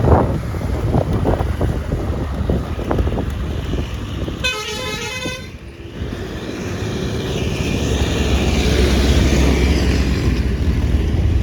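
A vehicle horn sounds once, for about a second, partway through. Around it is a steady rush of wind and road noise from travelling on the road, swelling again near the end.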